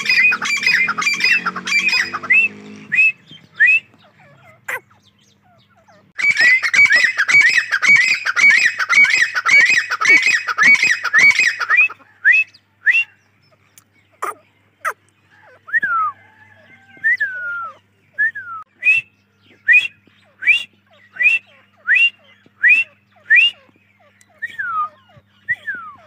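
Grey francolin calling: two long runs of rapid, loud, sharp repeated notes, then single sharp rising notes about once a second, with a few falling slurred notes among them.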